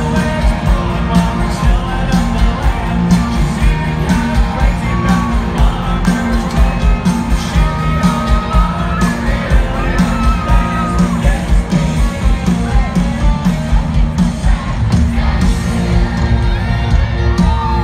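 Live country band playing a song with a steady beat and heavy bass under a singing voice, with people in the stadium crowd yelling and whooping along.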